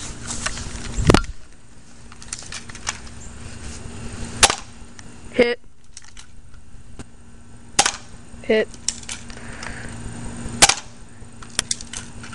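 UHC 1911 spring-powered airsoft pistol fired three times, about three seconds apart, each shot a sharp snap, with a brief rattle about a second after the first two. A heavier thump about a second in.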